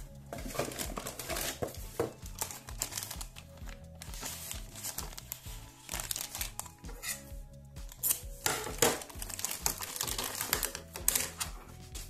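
Clear plastic toy bag crinkling and rustling in the hands as it is handled and opened, with the cardboard box flaps handled near the start. Background music plays underneath.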